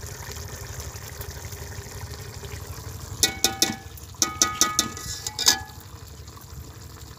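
Steel ladle clinking against a metal cooking pot of fish curry as it is stirred: a quick run of sharp, ringing metallic clinks from about three seconds in to about five and a half seconds, over a low steady rumble.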